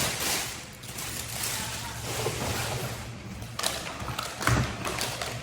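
Plastic cordless-vacuum parts being handled and fitted together: rustling and small knocks, with a thud about four and a half seconds in.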